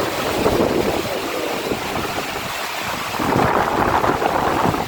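Windstorm: strong gusting wind rushing and buffeting the microphone, swelling louder about three seconds in.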